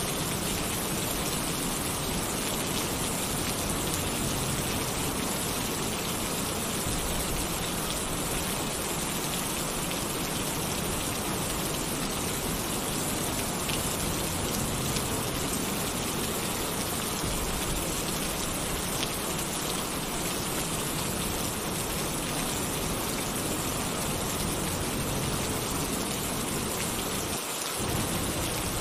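Heavy rain drumming steadily on a tin roof, with low thunder rumbling underneath that swells and fades; the rumble drops out briefly near the end.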